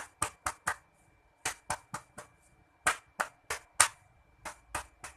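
A nurse's hands clapping alternately on a patient's back in chest-physiotherapy percussion, done to loosen sputum. Sharp pats come in groups of about four, roughly four a second, with short pauses between the groups.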